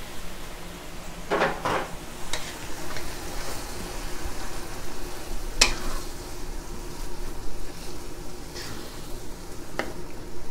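Soaked rice vermicelli (bihon) with chicken and shrimp sizzling in a hot wok as it is stir-fried with a wooden spatula: a steady frying hiss broken by a few sharp scrapes and knocks of the spatula against the wok at irregular moments.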